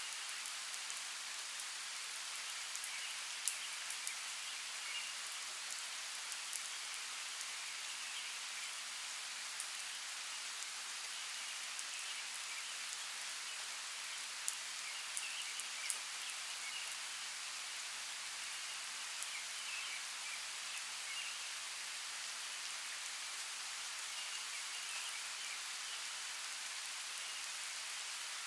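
Steady rain falling on a forest, an even hiss with scattered sharp drop ticks. Faint high chirping comes and goes behind it.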